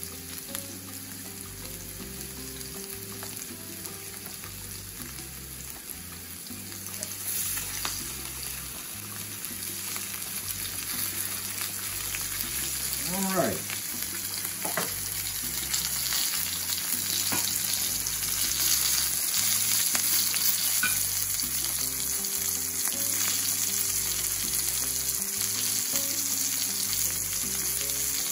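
Flour-dredged thin chicken breasts searing in hot olive oil in a stainless-steel skillet, a steady sizzle. It grows louder about a third of the way in as more pieces go into the pan.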